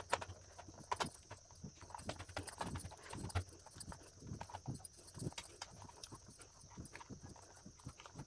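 Steel potato masher pressing boiled potatoes against a steel plate: quiet, irregular knocks and taps of metal on the plate, with soft squashing.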